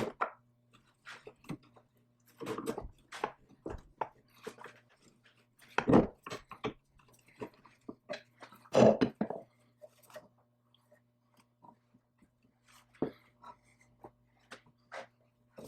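Irregular knocks, clinks and scrapes of tools and metal parts being handled during disassembly, the loudest about six and nine seconds in, over a faint steady low hum.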